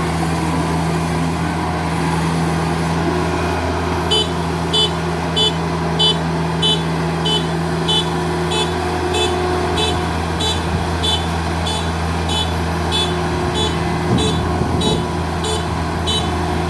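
Kubota DC70 Plus combine harvester's diesel engine running steadily. About four seconds in, a high warning beeper starts and keeps beeping about one and a half times a second.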